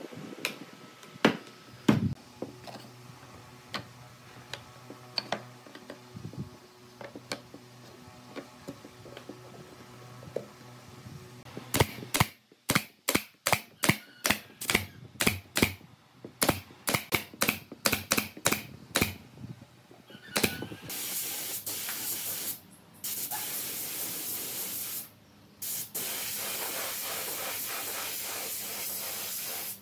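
A few scattered taps and knocks. Then a pneumatic brad nailer fires a rapid string of shots, about three a second, for some eight seconds, nailing down wooden seat slats. Then a pneumatic spray gun hisses steadily as it sprays finish, with two short breaks.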